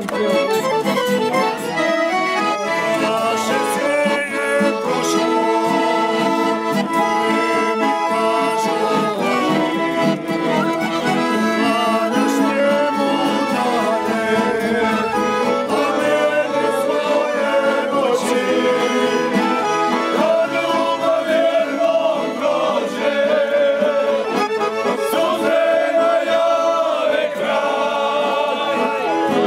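Accordions and an acoustic guitar playing a lively folk tune, with a group of men singing along.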